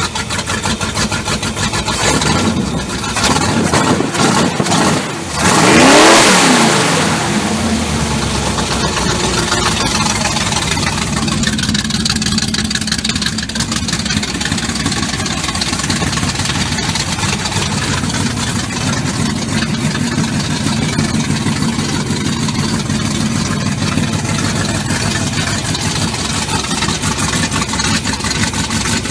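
1973 Plymouth Duster's V8 engine revved several times, the biggest rev about six seconds in, then settling back to a steady idle.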